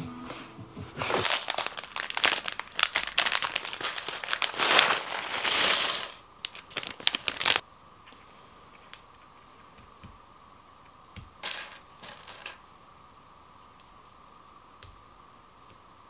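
Small plastic mini building bricks clattering and rattling onto a wooden tabletop for about six seconds, with some crinkling. After that come only scattered single clicks and a short clatter as pieces are picked out and handled.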